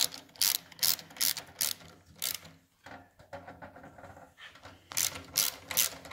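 Ratchet wrench clicking in short back-and-forth strokes, about two a second, with a softer pause midway, tightening the fuel tank's center mounting bolt on a motorcycle.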